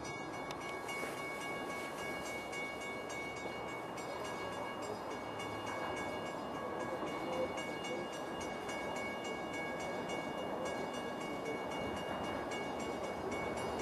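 Distant approaching commuter train: a steady, faint rumble with several thin, steady high tones held over it.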